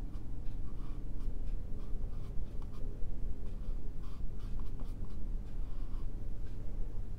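Flat brush scratching short strokes of oil paint onto a textured stretched canvas, a quick irregular run of soft scrapes, over a steady low hum.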